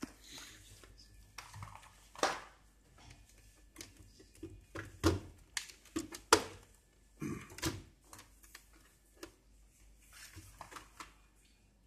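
Irregular clicks and knocks of patch-lead plugs being handled and pushed into the sockets of a Scientech 2153 PCM trainer board. The loudest come about two, five and six seconds in.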